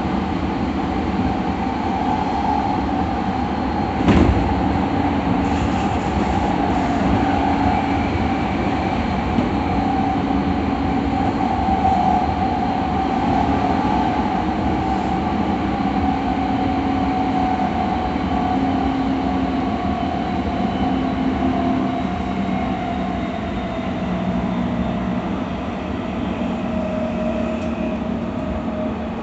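E217 series electric train running, heard from inside a passenger car: a steady rumble of wheels on rail, with a motor tone that slowly falls in pitch. One sharp knock comes about four seconds in.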